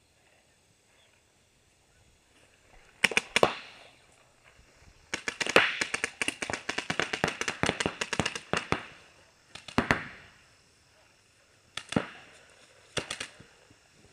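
Paintball markers firing: a few shots about three seconds in, then a rapid string of shots lasting about three and a half seconds, followed by scattered single shots and pairs.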